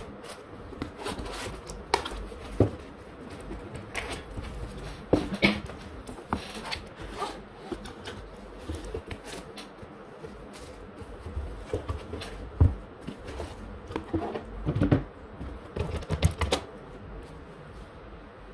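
Cardboard box and foam packaging handled while a network switch is unpacked: irregular knocks, taps and rustling. The sharpest knocks come in the second half.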